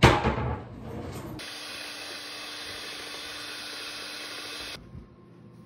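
A loud knock at the very start. About a second and a half in, an electric hand mixer starts beating batter in a stainless steel bowl, running steadily with a constant hum for about three seconds, then cuts off sharply.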